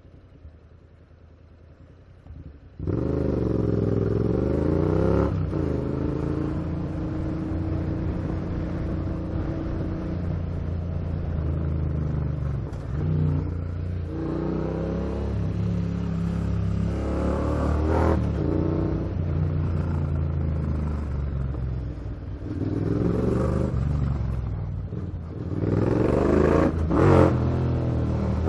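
Motorcycle engine running and revving, its pitch rising and falling again and again as it accelerates and eases off. It cuts in suddenly about three seconds in, after a quieter start.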